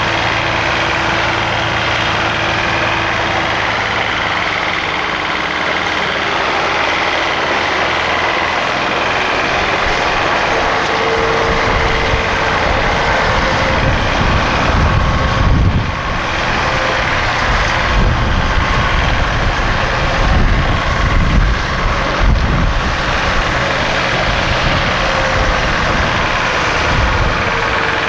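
Heavy lorry's diesel engine running steadily, with heavier low rumbling coming and going in the middle.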